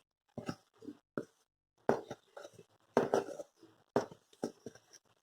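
A utensil scraping and tapping against a bowl and baking tin while cake batter is scraped out: short, irregular knocks and scrapes, a dozen or so in a few seconds.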